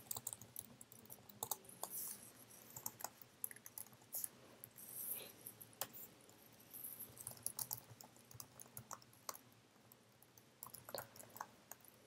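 Faint typing on a computer keyboard: irregular quick keystrokes as code is entered, with a short pause near the end.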